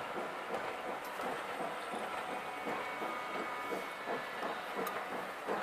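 Passenger coach wheels knocking over rail joints in a quick, even rhythm as a train of coaches rolls past on a curve, with faint thin squealing tones above it.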